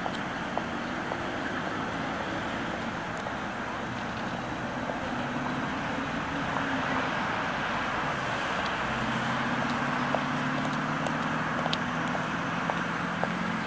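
City street traffic: a steady wash of road noise with a vehicle engine humming, growing a little louder past the middle. A run of light, evenly spaced clicks comes in near the end.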